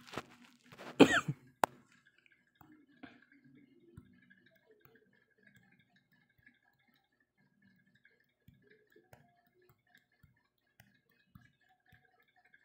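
A person coughs once, loudly, about a second in, followed by a sharp click. After that there are only faint scattered ticks.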